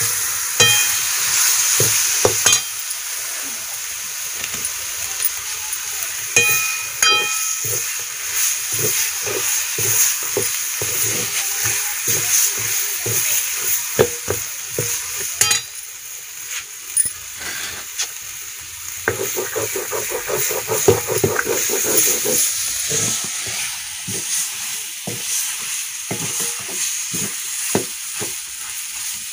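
Chicken frying and sizzling in hot oil in a metal kadhai, with a steel spoon stirring and scraping against the pan in quick repeated knocks. A few ringing metal clinks of utensils on the pan come twice in the first several seconds.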